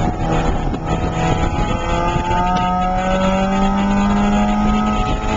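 Porsche 968's 3.0-litre four-cylinder engine heard from inside the cabin under track driving: the revs hold low through a corner, climb steadily from about two seconds in as the car accelerates, and ease off near the end.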